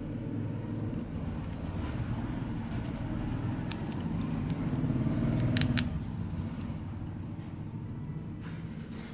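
A low rumble swells to a peak a little past the middle and then eases off. A few light, sharp clicks of a precision screwdriver on the phone's small screws sound over it.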